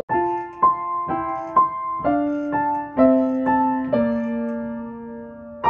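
Solo piano playing a slow melody over chords, notes struck about twice a second, settling on a held chord near the end.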